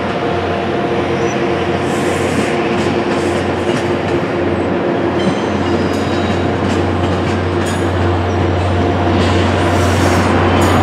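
Caltrain commuter train's bilevel passenger cars rolling past: a steady rumble of steel wheels on rail with a low hum, getting a little louder near the end.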